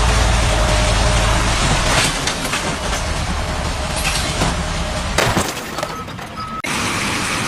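Heavy vehicle's engine running under a loud, even rush of noise, with a deep rumble for the first two seconds; the sound changes abruptly twice, about five seconds in and again near the end.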